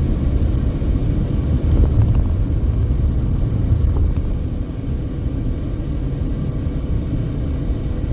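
A car driving at highway speed: a steady low rumble of tyres and engine.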